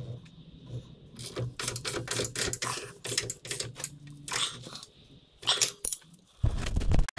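Irregular metallic clicks and clatter of hand tools working on suspension bolts under a vehicle, over a low steady hum, with a loud low thud near the end.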